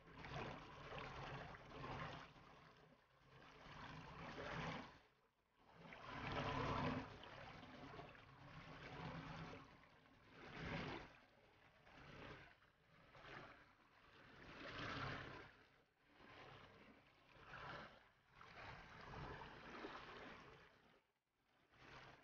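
Faint water lapping and sloshing against a boat's hull and a wooden rowing dinghy, swelling and fading every second or two.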